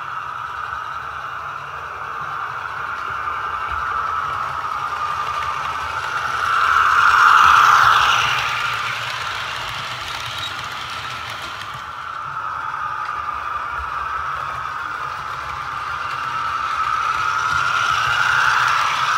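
Heljan OO-gauge Class 35 Hymek model locomotive running with its DCC sound decoder playing a diesel engine sound through its small speaker, over the running noise of the train on the track. It grows louder twice, about seven seconds in and again near the end, as the train passes close by.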